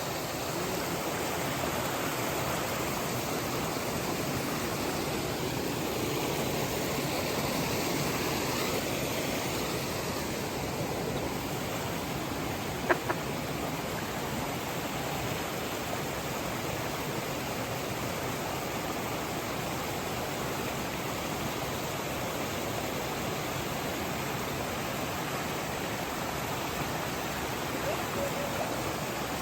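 Steady rush of a forest stream's flowing water, with one sharp click about halfway through.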